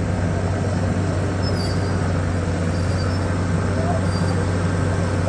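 Cat D5N LGP crawler dozer's diesel engine running steadily with a low, even hum while the machine pushes a load of dirt.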